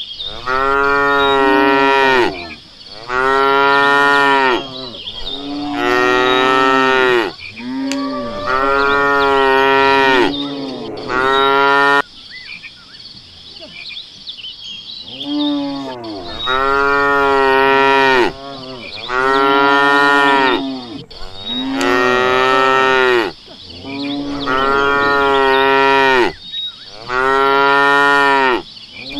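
A cow mooing over and over: long, drawn-out moos of about two seconds each, following one another closely, with a pause of a few seconds midway.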